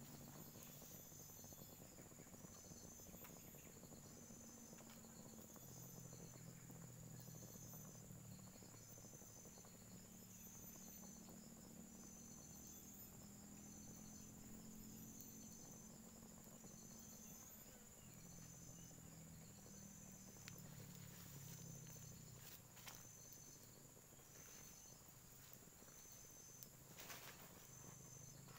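Faint insects: short, high chirps repeating about once a second over a steady high-pitched buzz, with a few faint clicks in the second half.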